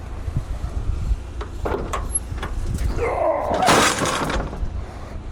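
A van's tail lift being lowered: knocks and metal rattles, then a loud metal-on-metal screech from about three seconds in that wavers up and down in pitch.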